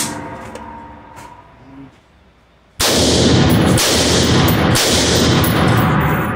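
Rifle shots firing 5.56 mm M193 rounds, each sharp crack followed by a long ringing echo off the hard walls of an indoor range. One shot comes right at the start and dies away over about two seconds. Another comes nearly three seconds in and one more around five seconds in, the echo carrying on between them.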